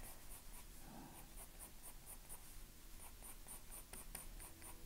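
Faint scratching of a soft graphite pencil on textured sketching paper, in quick short strokes several times a second, as fur is hatched in.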